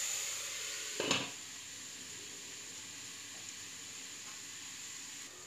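Ground beef with onion and garlic sizzling as it browns in oil in a lidded pot, with one short knock about a second in. The sizzle is louder in the first second or so, then settles to a steady, quieter hiss.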